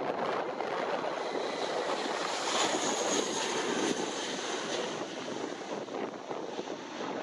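Jet noise from an Airbus A320-232's two IAE V2500 turbofans at takeoff thrust as the airliner lifts off and climbs away. The noise swells to its loudest about three seconds in, with a thin high whine on top, then slowly fades.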